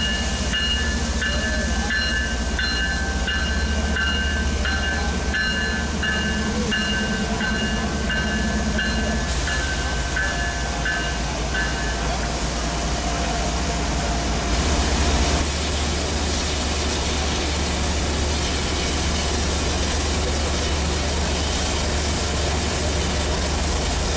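BNSF GE ES44DC and Dash-9 diesel freight locomotives rumbling past at close range, with a locomotive bell ringing about twice a second for the first twelve seconds. About fifteen seconds in the sound changes to the steady rumble and rail noise of Union Pacific SD70ACE diesel locomotives passing on another track.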